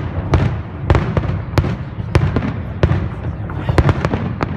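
Fireworks display: aerial shells bursting one after another, a sharp bang roughly every half second over a continuous low rumble of further bursts.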